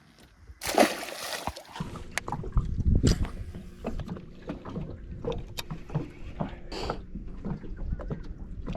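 A splash about a second in, then water slapping and sloshing against a small aluminium boat, with scattered knocks and a steady low rumble.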